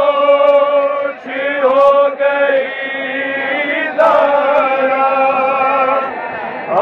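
Men chanting a noha, a Shia mourning lament, in long drawn-out sung notes, with a short break about a second in and a new phrase starting near the middle.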